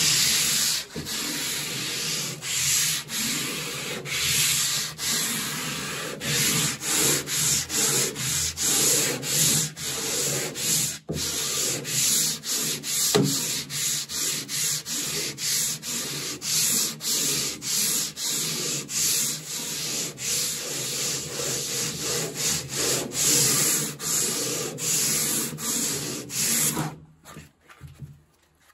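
Coarse 36-grit sandpaper on a bubinga sanding block rubbed back and forth by hand over softwood crossbanding, a rasping stroke repeated about one and a half times a second, levelling the surface flat for gluing veneer. The strokes stop a little before the end.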